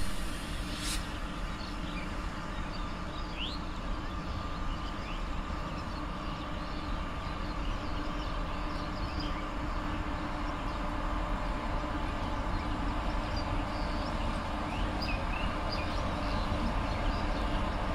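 An Indian Railways WAG-7 electric locomotive, coupled with a dead WAG-9, hauling a container freight train slowly from a distance: a steady low rumble with a faint hum, growing a little louder as it nears. A few bird chirps sound over it.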